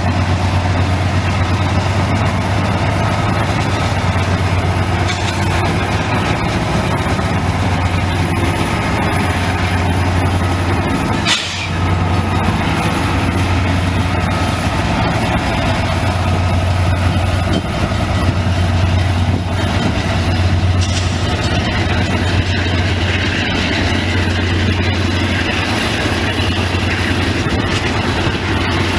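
Diesel locomotives running with a steady low drone, with a brief dip about eleven seconds in.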